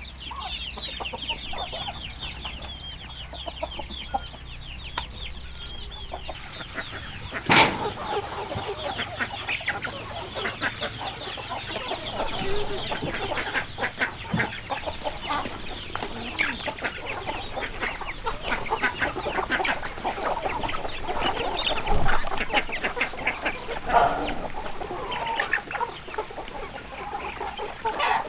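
A flock of chickens clucking and calling, many calls overlapping, with a sharp knock about a quarter of the way in.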